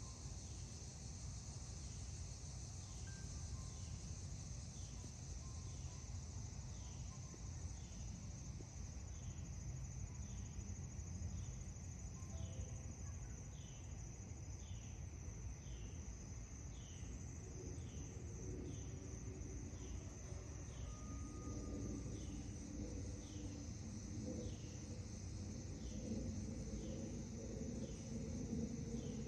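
Outdoor garden ambience: insects buzzing steadily at a high pitch, with a short chirp repeating about once a second, over a low background rumble.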